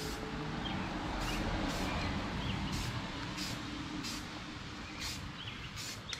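Aerosol can of Rust-Oleum automotive primer spraying in short hissing bursts, about six of them roughly a second apart, as a second coat goes on. Birds chirp faintly in the background over a low steady rumble.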